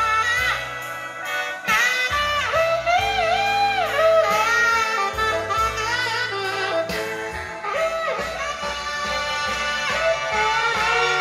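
Recorded blues music playing through a DIY single-ended tube amplifier (Soviet 6N3C power tube, 12AX7 driver) into an old Telefunken oval full-range speaker, with a bending lead melody over a steady bass line.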